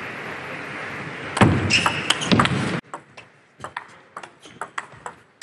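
Hall crowd noise that swells briefly with voices in the first half. Then comes a table tennis rally in a quiet arena, the plastic ball clicking sharply off bats and table several times a second.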